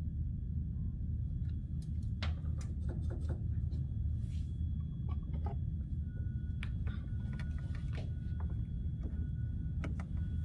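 Steady low room hum with scattered light clicks and taps as wires and a small plastic part are handled inside the mower's electronics bay during soldering work.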